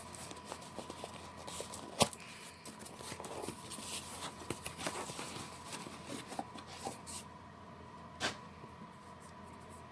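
Handling sounds of a candle being taken out and handled: scattered rustling and light clicks, with a sharp knock about two seconds in and another near the end.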